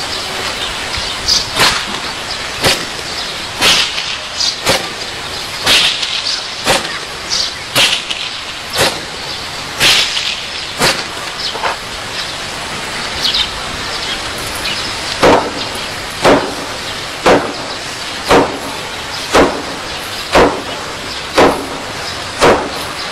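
Hand strikes slapping down on a small sandbag lying on a concrete bench, in kung fu hand-conditioning training: one sharp smack about once a second, over a steady background hiss.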